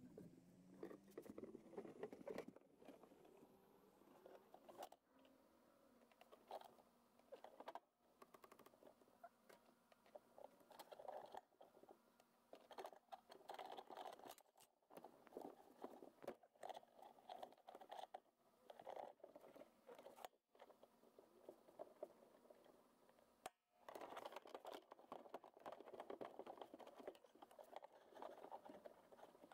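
Near silence with faint rustling and scattered small clicks from hands handling wires and plastic plug-in connectors at a dishwasher pump motor.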